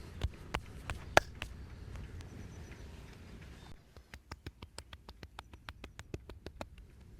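Sharp slaps and taps of a percussive head and neck massage, with one much louder crack about a second in. After a brief lull comes a fast, even run of about six taps a second that stops near the end.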